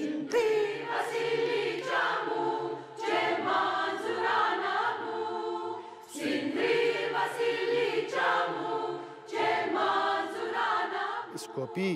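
Mixed men's and women's choir singing together in harmony, in about four phrases of roughly three seconds each with short breaks between.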